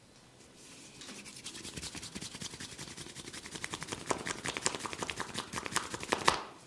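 Fast, rhythmic rubbing strokes close to the microphone, about eight to ten a second, building in loudness to one loud stroke and then stopping abruptly.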